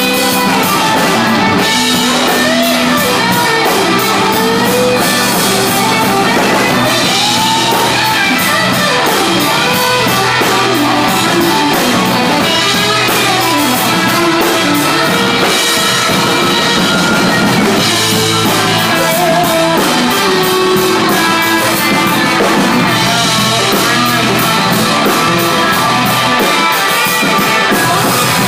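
Live rock band playing an instrumental passage: electric guitar playing bending, gliding notes over a drum kit with steady cymbal strokes.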